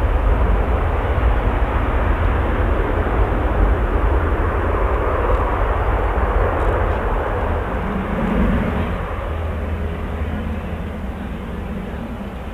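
Airbus A350-900's Rolls-Royce Trent XWB engines loud on the landing rollout just after touchdown: a deep rumble with a broad rush of noise that slowly fades toward the end as the airliner slows.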